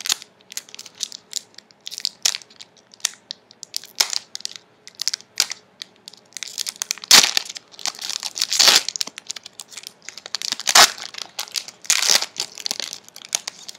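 The foil wrapper of a sealed 1994-95 Topps Finest basketball card pack crinkling and tearing as it is opened by hand. It starts as scattered crackles, then gets denser and louder with crumpling in the second half.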